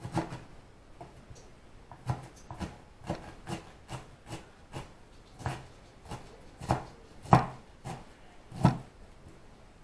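Kitchen knife chopping vegetables on a cutting board: a string of sharp, uneven knocks, roughly two a second, after a first knock at the start.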